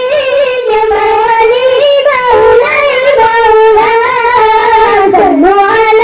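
A child's high voice sings a long, drawn-out, ornamented line of sholawat devotional chant, the held notes wavering, with a swooping dip in pitch near the end.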